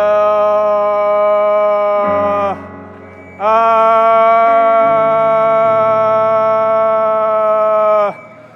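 Slow worship music: a man's voice holding long, steady sung notes over sustained keyboard chords, with a short break about two and a half seconds in and another near the end.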